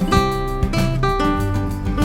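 Background music: acoustic guitar playing a melody of plucked notes.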